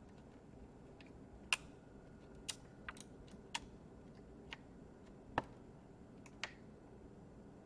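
About eight light, sharp clicks and taps at irregular intervals, from small laptop parts and tools being handled during the repair.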